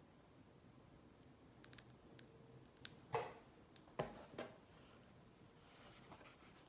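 Light clicks and taps from handling a jewellery presentation box: a quick run of small clicks, then two louder knocks about a second apart.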